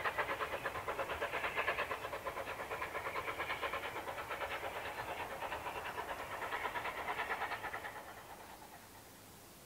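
Rapid, even exhaust beats of the three-cylinder Bulleid Light Pacific steam locomotive 34072 '257 Squadron' working away into the distance, slowly growing fainter and dying away about eight seconds in.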